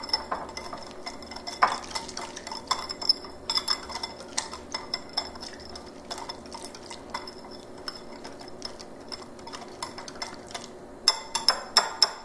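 A utensil stirring a wet chili and vinegar seasoning paste in a glass bowl, with a continuous run of small clinks and scrapes against the bowl. Near the end come several quick, louder clinks.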